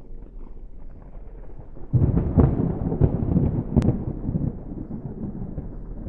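Thunder rumbling: a faint rumble, then a sudden loud peal about two seconds in that rolls on and slowly fades, with a single sharp click shortly before four seconds.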